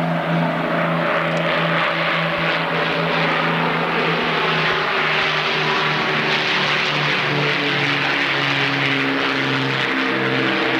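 Avro Lancaster bomber's four Merlin V12 piston engines running in a low fly-past, a steady propeller drone with a pulsing beat from the engines running slightly out of step. The pitch sinks a little in the second half as the aircraft passes.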